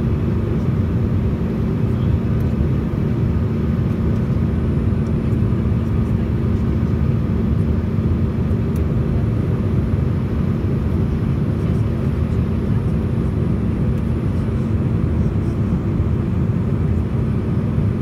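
Steady cabin noise inside a Sukhoi Superjet 100 airliner during descent: the low rumble of its SaM146 turbofan engines and the airflow, with a steady low hum running through it.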